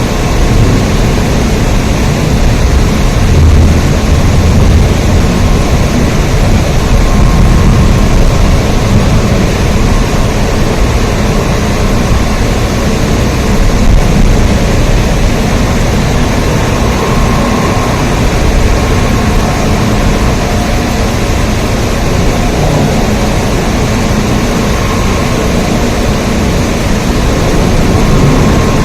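Steady rain: a loud, even wash of noise with a strong low rumble and no breaks.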